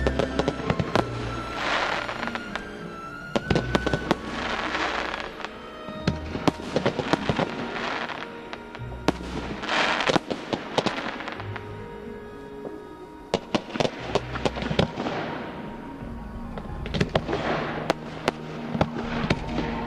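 Fireworks display: aerial shells and rising comets going off in many sharp bangs and crackles, over music.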